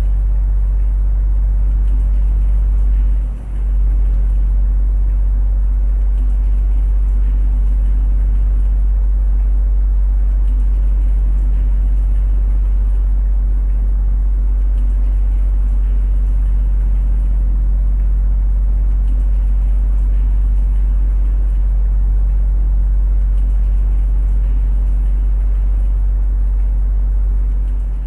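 Rotating electric fan running steadily with a deep rumble and low motor hum, over the even hiss of rain falling on concrete. The level dips briefly about three seconds in.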